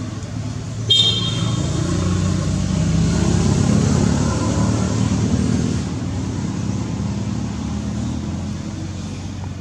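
A motor vehicle going past on a road, its engine and road noise swelling to a peak a few seconds in and then fading, with a short, sharp, high-pitched toot about a second in.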